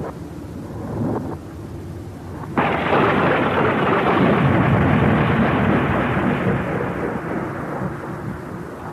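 Thunder sound effect: a low rumble, then a sudden loud thunderclap about two and a half seconds in that rolls on and slowly dies away.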